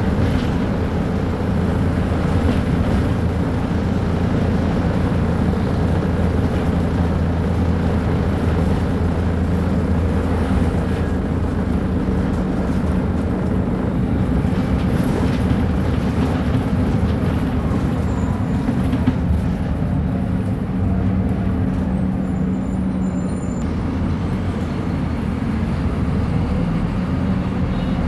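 Scania K310UB bus's diesel engine running with a steady low drone.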